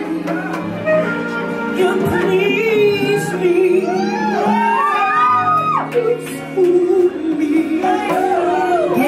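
Band music with a woman singing; her voice slides through long runs, held on one high note near the middle and again sliding near the end.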